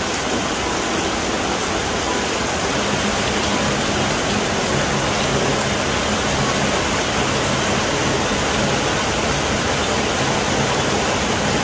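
Heavy rain pouring down steadily, a dense even hiss of a tropical downpour.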